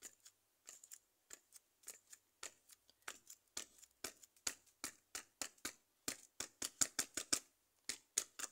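Hands rolling and kneading a lump of modelling clay back and forth on a modelling board: a run of soft, quick clicking and rubbing strokes that comes faster and louder about six seconds in.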